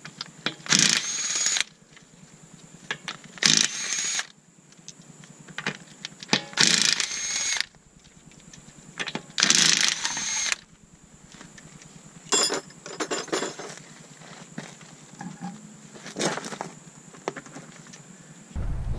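Cordless impact wrench hammering lug nuts loose from a car wheel, in four bursts of about a second each, a few seconds apart. Shorter clattering knocks follow later as the nuts and wheel are handled.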